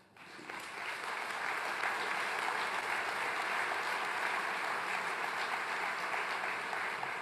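Large seated audience applauding, swelling in over the first second and then holding steady.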